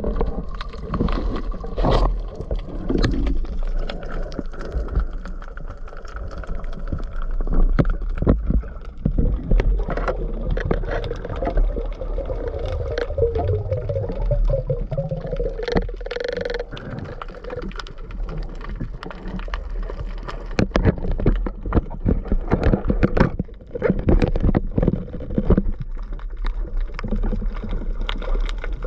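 Underwater sound picked up by an action camera: a low rumble of moving water with many irregular clicks and knocks, and a wavering hum for a few seconds in the middle.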